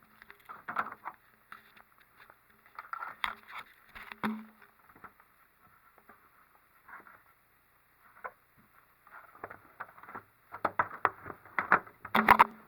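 3D printer hood frame parts being handled and fitted together by hand: scattered clicks, taps and rustling in short clusters, busiest and loudest near the end.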